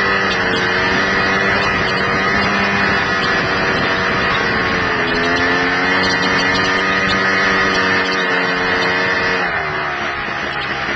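Honda Pilot FL400 buggy's single-cylinder four-stroke engine running under way at fairly steady revs, which drop near the end. Wind and rushing noise over the microphone.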